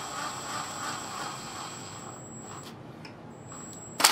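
Cordless driver with a nut-driver bit spinning down the screw of a worm-gear hose clamp, running steadily with a faint high whine for about two seconds, then easing off. A short, sharp clack near the end.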